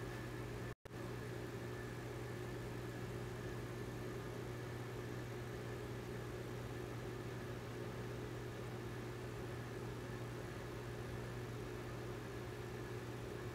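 Aquarium air pump and filters running: a steady low hum over a hiss of water and bubbles. The sound cuts out for a split second about a second in.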